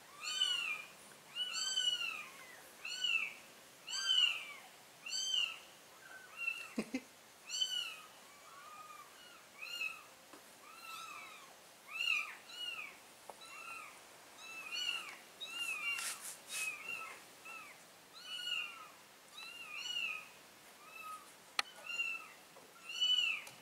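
Newborn kittens mewing over and over: short, high cries that rise and fall, about one or two a second, as a kitten is carried in the mother cat's mouth. A brief rustle comes about two-thirds of the way through.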